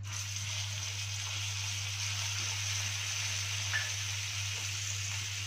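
Minced chard greens dropped into hot ghee and oil in a frying pan, sizzling steadily; the sizzle starts suddenly as the greens go in.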